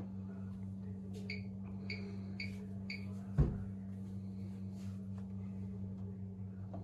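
Bosch Series 6 washing machine's control panel beeping four short times, as buttons are pressed, over a steady low hum. A single loud thump follows about three and a half seconds in.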